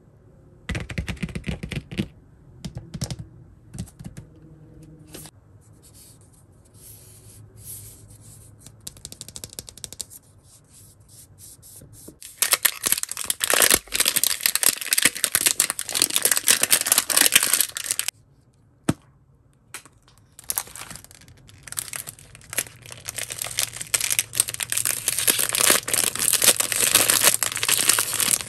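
Plastic wrap being peeled and torn off a toy surprise ball, then a plastic foil packet crinkling in the hands. It begins with scattered taps and light crinkles, turns loud and dense about twelve seconds in, pauses briefly, and starts again.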